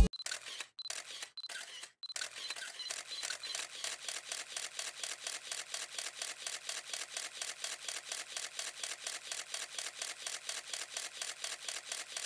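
Camera shutter clicking like paparazzi firing off shots: a few single clicks in the first two seconds, then a steady rapid run of about seven clicks a second.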